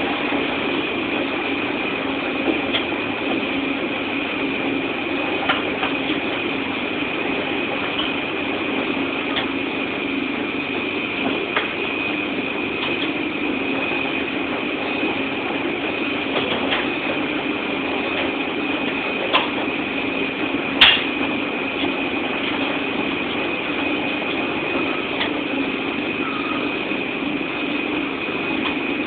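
Washing machine running a load: a steady mechanical hum with a high whine, broken by scattered light clicks and knocks, one louder knock about three-quarters of the way through.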